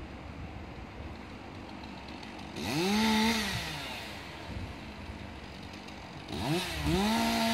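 An engine revving up twice from a low idle: the first rev comes about two and a half seconds in, rising, holding and dropping back within a second; the second starts near the end and stays high.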